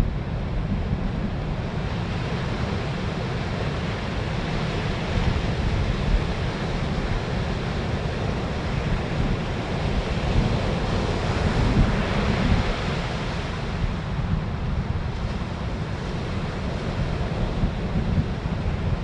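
Ocean surf breaking and washing in steadily, with heavy wind rumbling on the microphone. The surf swells louder a little past the middle.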